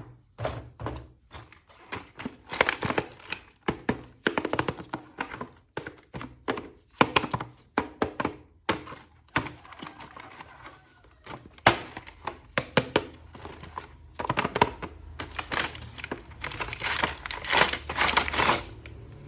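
Hands opening a toy package: a run of irregular plastic clicks and knocks with some crinkling.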